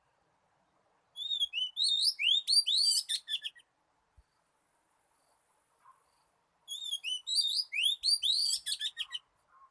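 Oriental magpie-robin singing: two phrases of quick, varied whistled notes sweeping up and down, one starting about a second in and another near the end. It is a lure song of the species' wild type, used to draw magpie-robins to a trap.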